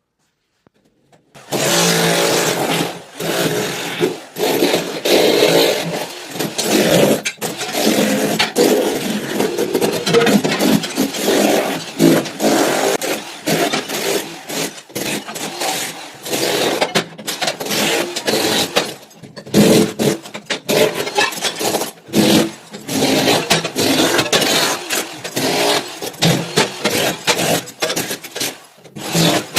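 A power tool running hard under load, with uneven scraping and knocking, starting about a second and a half in.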